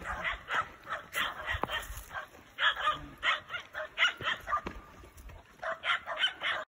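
Several boar-hunting dogs barking and yipping in a rapid, irregular run of short, excited calls.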